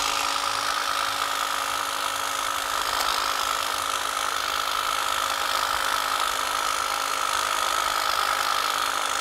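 Honda cordless battery-powered hedge trimmer running at a steady speed, its blades cutting through the foliage of a low shrub.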